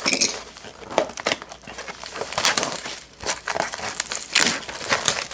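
Plastic wrapping on a box of trading cards crinkling and tearing as it is pulled off by hand, in irregular rustles.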